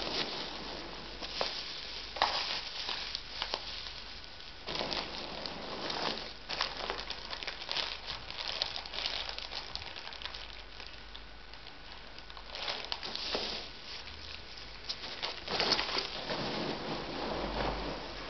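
Packaging and parts being handled: irregular crinkling and rustling of wrapping, with light clicks and knocks.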